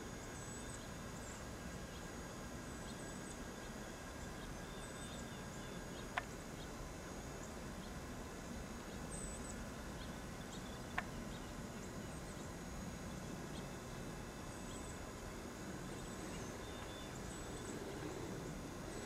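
Steady outdoor noise in a snowstorm, with two sharp clicks about five seconds apart and faint, short high chirps now and then.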